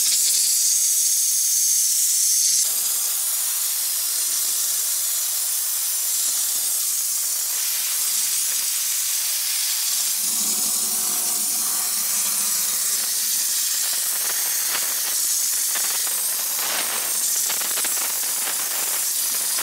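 A steam cleaner's lance blasting a jet of steam: a steady, powerful hiss as the high-pressure steam breaks up grease on an engine. The hiss drops slightly about two and a half seconds in.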